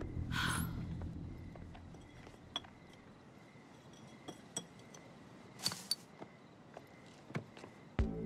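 Background music dying away over the first couple of seconds, then a hush broken by faint scattered clicks and light clinks and a couple of brief rustles.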